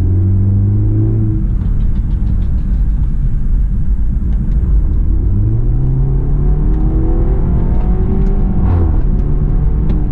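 BMW 320i's B48 2.0-litre turbocharged four-cylinder engine heard from inside the cabin, over steady road rumble. The engine note falls away in the first second or so, then the revs climb steadily under acceleration for several seconds before dropping sharply about nine seconds in.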